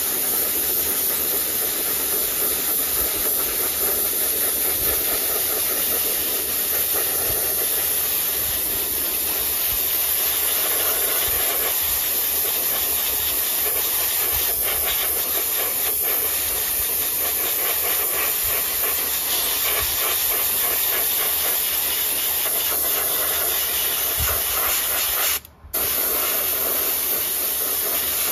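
Gravity-feed airbrush spraying white base-coat paint onto spinner blades: a steady hiss of compressed air and paint, breaking off briefly near the end.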